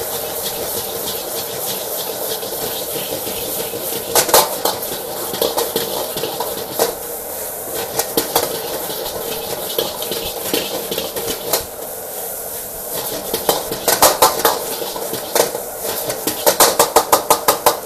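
A metal utensil scraping and clanking against a wok as fried rice is tossed and stir-fried, over a steady background sizzle. Near the end it breaks into a quick run of taps, about seven a second.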